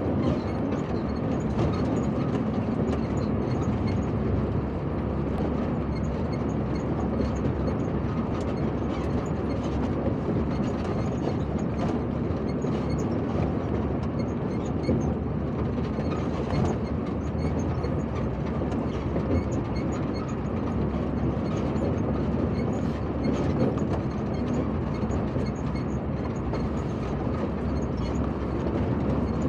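Steady rumble of heavy vehicles driving over a rough dirt road, engine and tyre noise without letting up.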